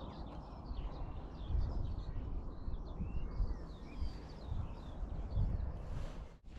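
Several small birds chirping and singing in quick, overlapping calls over a steady low rumble, which cuts out briefly near the end.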